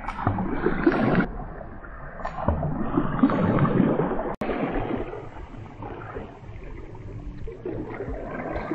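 Wind rushing over the camera microphone, with water lapping at a rocky lakeshore, in uneven surges; it breaks off sharply about four seconds in and carries on quieter.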